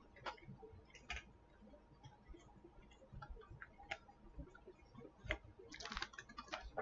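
Faint, irregular clicks and smacks of a person chewing, a few scattered ones at first and growing busier near the end.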